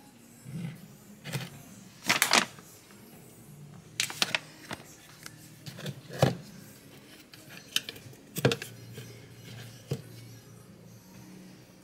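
A plastic supplement tub being opened and a plastic scoop dug into the powder inside: a string of sharp plastic clicks and knocks, the loudest about two seconds in.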